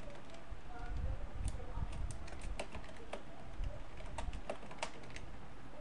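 Typing on a computer keyboard: irregular key clicks, coming thicker from about a second and a half in, over a low steady hum.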